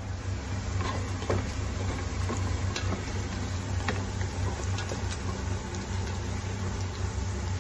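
Minced garlic sizzling in hot oil in a stainless steel pot as it is stirred with a wooden spatula. Scattered small clicks and scrapes of the spatula against the pot sound over a steady low hum.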